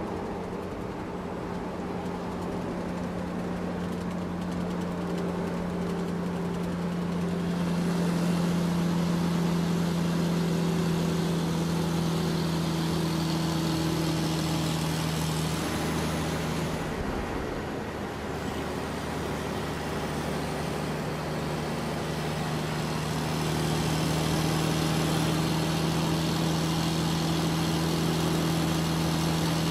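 Radio-controlled scale excavator's motor running with a steady pitched hum. It swells louder about a quarter of the way in and again near the end, and breaks off briefly just past the middle.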